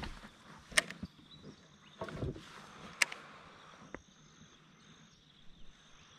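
A few sharp clicks and a dull low knock from fishing tackle and the hull of a small boat as a lure is cast and worked, over a faint, steady high insect drone.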